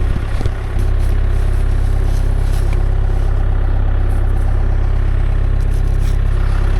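Farm tractor's engine idling steadily.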